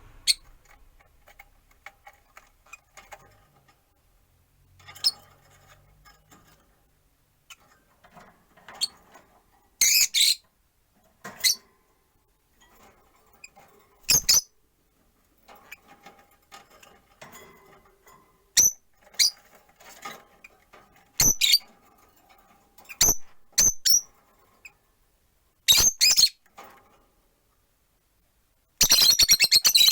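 Peach-faced lovebirds (rosy-faced lovebirds) chirping: scattered short, sharp, high calls from several birds, ending in a loud run of rapid chatter near the end.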